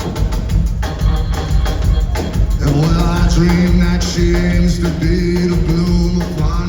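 Live band playing a song: a steady drum beat over a bass groove, joined about two and a half seconds in by held low sustained notes.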